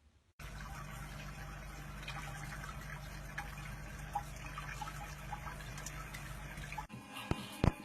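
Steady rush of running water over a low hum, starting and stopping abruptly, with a sharp click near the end.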